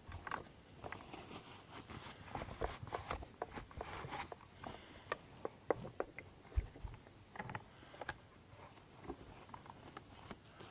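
Handling noise from a Shindaiwa T270 string trimmer being wiped down with a rag: irregular small clicks and knocks against its plastic engine housing and shaft, with cloth rubbing, and a couple of sharper knocks about halfway through.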